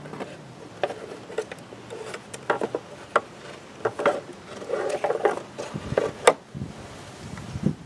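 Black plastic air filter housing of a Volvo S60 T5 being handled and lifted out: irregular knocks, clicks and scraping of hard plastic parts against each other, with the engine off.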